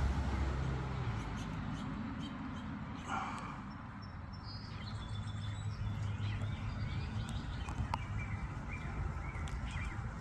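Small birds chirping in short, scattered calls over a steady low rumble, with one sharp click near the end.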